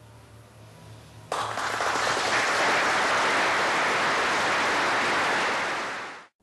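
Applause from a large group of people, starting suddenly about a second in, going on as steady dense clapping, then fading out and cutting off near the end.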